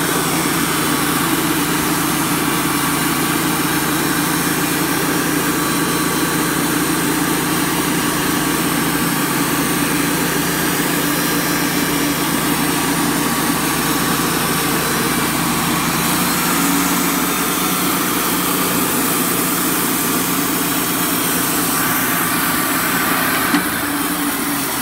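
Wood-Mizer LT35 portable band sawmill running steadily, its engine driving the band blade through a wide log. The low part of the sound drops off about two-thirds of the way through, and a single sharp click comes near the end.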